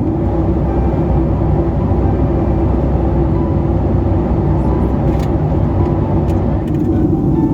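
Steady low drone of engine and airflow noise heard inside the cabin of a Boeing 757-300 in flight, with a few faint clicks about five to seven seconds in.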